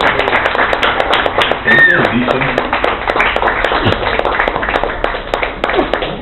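Small live audience clapping after a song, with a few voices calling out, one short cheer about two seconds in.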